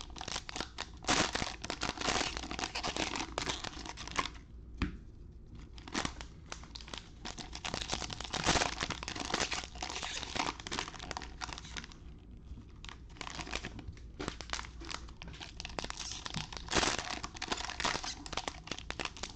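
Trading-card fat pack wrappers being torn open and crinkled by hand: a dense, uneven crackle of tearing and crumpling wrapper, with short lulls about four seconds in and again around twelve seconds.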